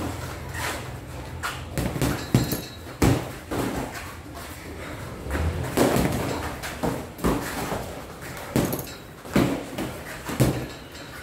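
Boxing gloves landing on gloves, arms and headgear during sparring: a dozen or so sharp thuds and slaps at irregular intervals.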